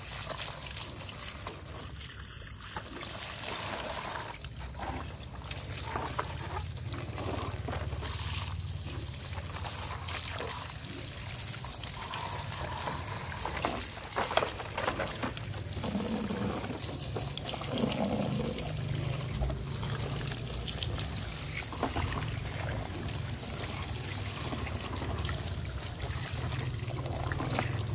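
Running water from a hose splashing and trickling over plastic toy dump trucks and onto wet tiles, with occasional light knocks of plastic as the trucks are handled.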